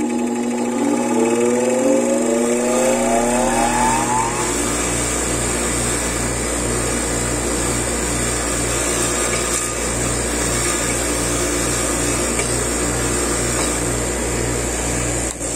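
A power tool's motor spins up with a rising whine over the first few seconds, then runs steadily with a rough noise as it cleans old thread locker off the output gear bolt's threads.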